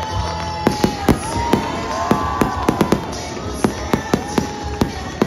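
Fireworks going off: a rapid, irregular string of sharp bangs and crackles starting under a second in, as gold stars burst overhead.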